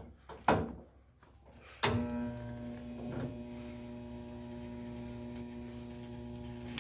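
Two sharp clicks, then a handheld spot welder's transformer hums steadily for about five seconds as it spot-welds a replacement VW Type 2 nose panel.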